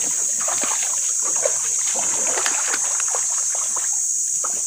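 Footsteps wading through shallow stream water, irregular splashes and sloshes that thin out near the end, over a steady high-pitched hiss.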